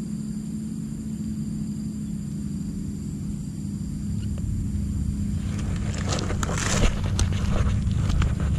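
Motor scooter engine idling with a steady low hum. From about five and a half seconds in, close crackling, clicks and knocks join it as the scooter and its handlebar camera are moved.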